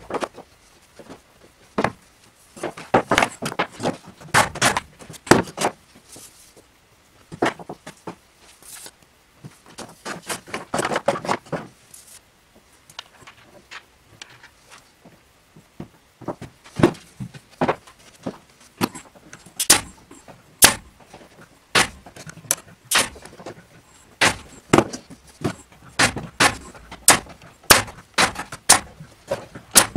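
Workshop handling of OSB boards and plastic bins: irregular knocks, taps and scrapes as the pieces are set down and positioned. Over the second half, a pneumatic nail gun fires a dozen or so sharp shots, about one every half-second to second, fastening the OSB top onto the dividers.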